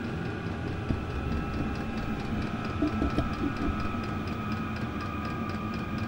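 Chinese-made diesel air heater running: a steady low rumble of the combustion chamber and blower, with a thin fan whine over it, as it blows hot air out of its outlet.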